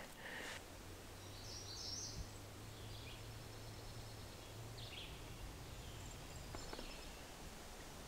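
Quiet outdoor ambience: a few faint, high bird chirps scattered over a low steady hum.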